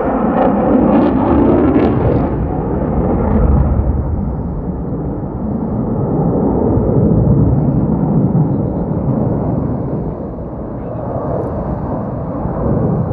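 Su-57 fighter's twin jet engines at high power, a deep thunder-like rumble that swells and eases several times, dipping near the end.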